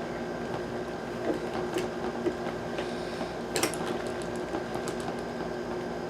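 A few light, irregular clicks and taps of small hard objects being handled, the loudest about three and a half seconds in, over a steady electrical hum.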